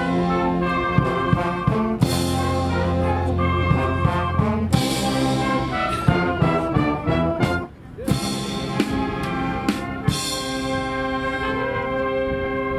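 A school wind band playing brass-led music with sousaphones and drums, in held notes marked by drum strokes. About eight seconds in the music breaks off for a moment, then the band plays on.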